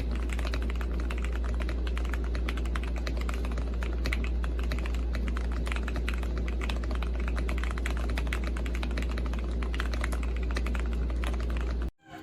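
Rapid typing on a mechanical keyboard: a dense, continuous run of key clicks over a steady low hum. It all cuts off abruptly near the end.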